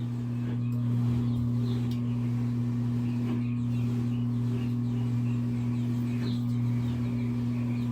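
General Electric washing machine running with a steady hum after the tub has drained. The spin does not start because the faulty timer is not advancing.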